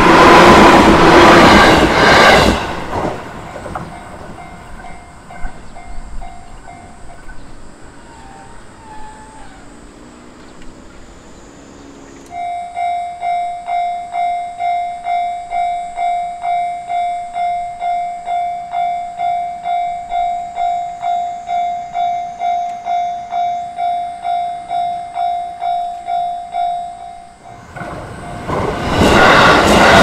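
Electric train on the JR Chuo Line passing over a level crossing, loud for the first two seconds or so and then fading away. About twelve seconds in, the crossing's electronic warning bell starts ringing, about two clangs a second, and it stops near the end as loud train noise comes in again.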